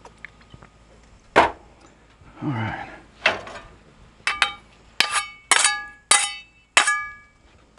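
A few scattered knocks, then five sharp ringing metal clangs about half a second apart: steel griddle spatulas being struck together.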